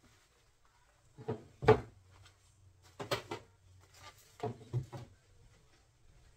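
Knocks and clunks of hard objects being handled and set down, in three quick bursts of two or three hits each; the loudest thump comes about a second and a half in.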